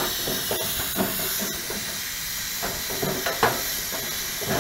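Miniature 5-inch-gauge steam locomotive hissing steam steadily, with a few light knocks about a second in and again near the end.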